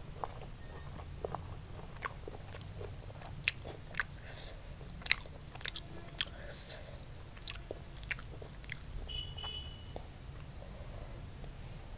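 Close-miked mukbang eating sounds: chewing a mouthful of spicy fried rice, with irregular sharp wet mouth clicks and crunches over a low steady hum.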